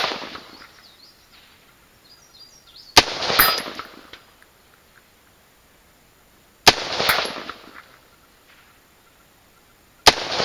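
A 16-inch .223 AR-15 rifle firing at steel plates about 300 yards off. There are three shots about three and a half seconds apart, each followed a fraction of a second later by a second sharp crack and a fading echo. The second crack of an earlier shot is heard right at the start.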